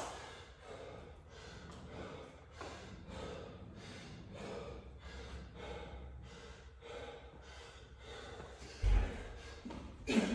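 A man panting hard, about two heavy breaths a second, winded from intense exercise. Just before the end, a loud thud as he jumps up to a pull-up bar.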